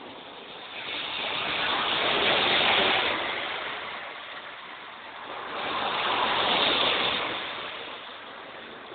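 Two vehicles passing by one after the other. Each is a rushing tyre-and-road noise that swells over a second or two, peaks and fades, the first about three seconds in and the second about seven seconds in.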